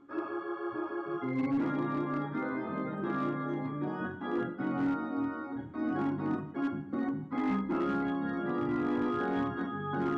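Organ music: sustained chords, joined about a second in by repeated sharp percussive hits.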